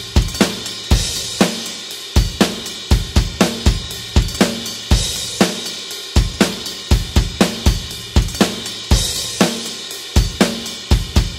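Rock drum kit playing a steady beat at 120 beats per minute: kick drum, snare and hi-hat, with a crash cymbal about every four seconds.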